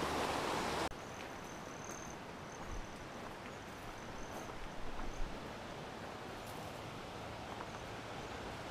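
River water rushing, cut off abruptly about a second in. Then a quieter outdoor background with a faint, thin, high insect buzz and a few soft thumps from footsteps on a dirt trail.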